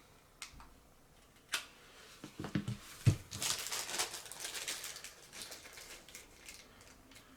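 Handling noise: a few light clicks and knocks, a sharper thump about three seconds in, then a couple of seconds of plastic packaging crinkling that fades away.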